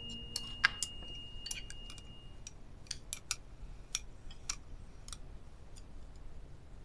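Chopsticks clicking against a glass bowl and a small pot while noodles are lifted and eaten, about a dozen light scattered clicks. A faint high ring dies away over the first two seconds.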